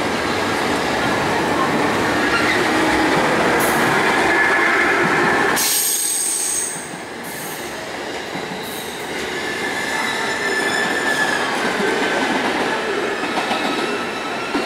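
JR Kyushu 811 series electric multiple unit pulling out and rolling past at low speed, its wheels rumbling on the rails with high, thin wheel squeal coming and going. The rumble drops suddenly a little over halfway through, then builds again with more squealing.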